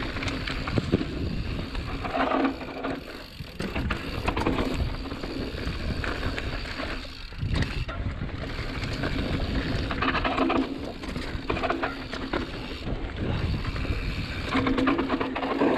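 Mountain bike riding fast down a dirt singletrack: tyres rolling and skidding over earth and roots, the bike rattling over bumps, with wind rushing over the camera microphone. A low steady buzz comes and goes several times.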